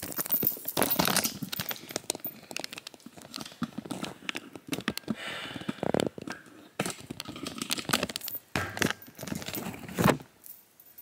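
Crinkling and crackling handling noise with scattered clicks and knocks as a hard-wax kit and its wax are worked with, and one sharper knock near the end.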